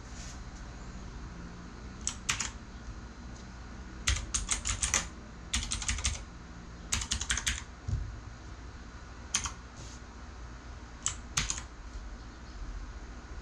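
Keys being pressed on a Redragon Kumara K552-2 mechanical keyboard with clicky switches. The presses come in short runs of sharp clicks, separated by pauses.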